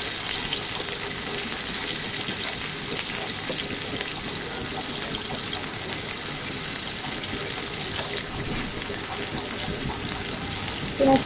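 Chopped onions sizzling steadily in hot oil in a nonstick frying pan.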